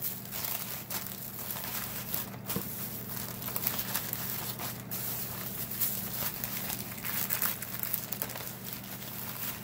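Plastic zip-top freezer bag and wax paper crinkling and rustling in irregular bursts as hands fill and smooth the bag flat.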